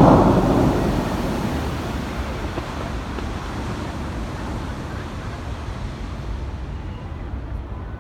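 Bellagio fountain water falling back into the lake, a loud rush that fades steadily as the jets collapse into spray. Wind rumbles on the microphone underneath.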